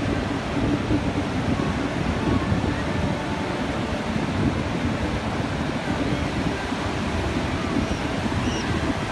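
Ocean surf breaking steadily, with wind buffeting the microphone in a low, choppy rumble.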